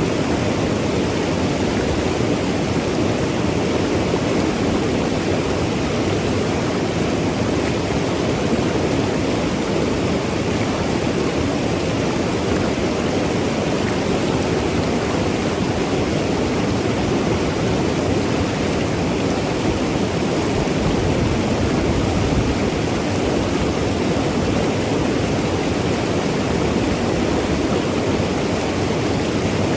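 Mountain river flowing and tumbling over rocks: a steady, even rush of water with no breaks.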